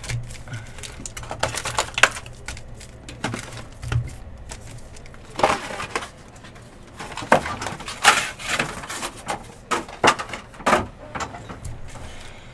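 Trading cards and their packaging being handled: irregular rustling with scattered clicks and taps.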